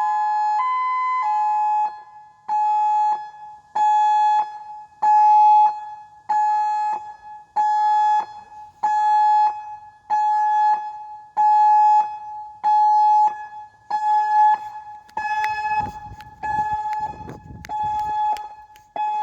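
Federal Signal Modulator electronic outdoor warning siren ending its hi-lo tone, two pitches alternating, then sounding its pulse tone: one steady tone switched on and off about every 1.25 s. A low rumble joins in near the end.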